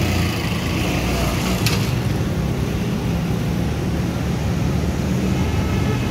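Steady street traffic noise with a low hum, and one sharp click a little under two seconds in.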